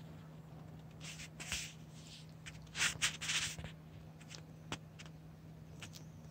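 Kitten chewing and tugging a string toy: a few short rustling scrapes, the loudest about three seconds in, then several soft clicks, over a faint steady low hum.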